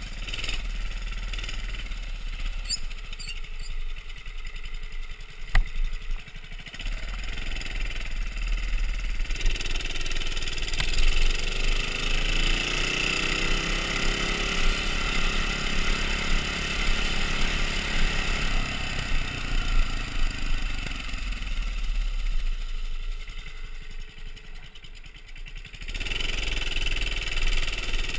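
Minibike engine running while the bike is ridden, with a steady low rumble. Its pitch climbs as it speeds up about ten seconds in and sinks again later on. It goes quieter for a few seconds near the end, then picks up again, and there is a single sharp click early in the ride.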